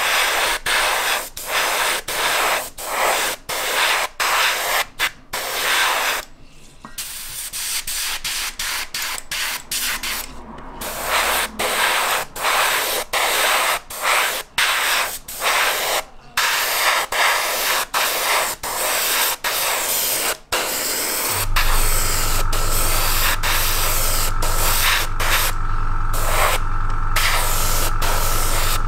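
Airbrush spraying primer in many short hissing bursts, each stopping abruptly between passes. About three-quarters of the way in, the air compressor starts and runs with a steady hum under the spraying.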